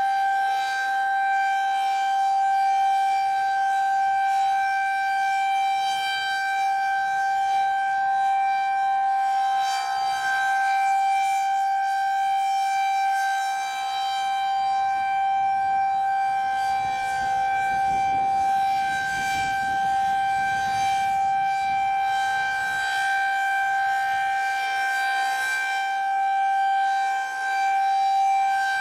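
Federal Signal 2001-SRN rotating outdoor warning siren sounding a steady, unbroken tone during its monthly test. The pitch holds level while the loudness swells and dips slightly as the siren head rotates.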